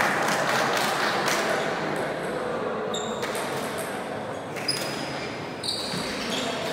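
Table tennis ball clicking off bats and the table in irregular knocks during a doubles rally, over steady hall noise. A few short high squeaks come in the second half.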